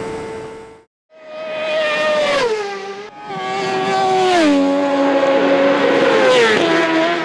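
Kawasaki superbike's inline-four engine at high revs, held steady, until the sound cuts out briefly about a second in. It comes back as a racing motorcycle engine whose pitch steps down three times, dropping between steady stretches.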